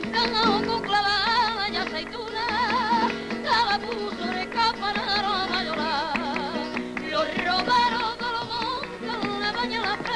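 Flamenco music: a singer holding wavering, ornamented notes over plucked guitar, with frequent sharp percussive strokes.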